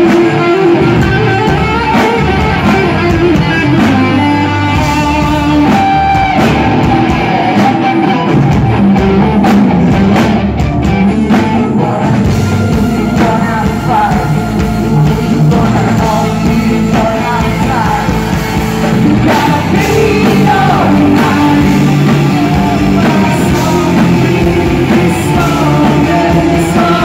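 Live gothic metal band playing loud: a woman's lead vocals sung over electric guitar and drums.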